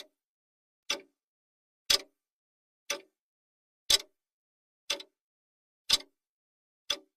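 Clock-style ticking sound effect of a countdown timer, one sharp tick each second, alternating slightly louder and softer like a tick-tock, with silence between the ticks.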